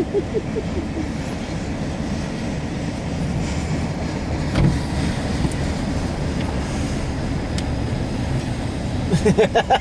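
Norfolk Southern intermodal freight train rolling past: a steady, continuous rumble of wheels and cars on the rails.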